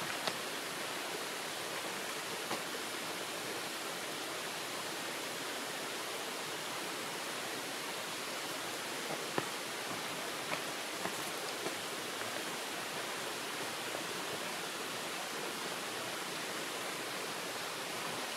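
Steady, even rushing noise of outdoor ambience with a few faint ticks.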